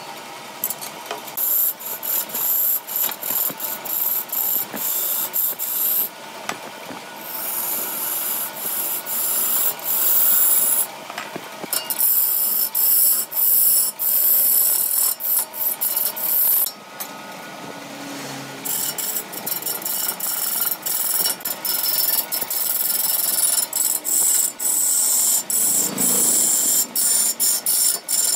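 Lathe chisel scraping and cutting into the end face of a large ebony root blank spinning on a wood lathe: a hissing, rasping scrape in stretches of rapid strokes, broken by a few short pauses as the tool is eased off.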